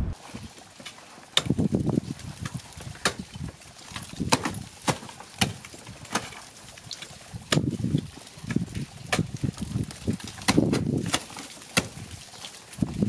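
Ice-axe picks and the crampon points strapped to wooden clogs being driven into steep glacier ice: a series of sharp strikes about a second apart, some with duller thuds of the kicks.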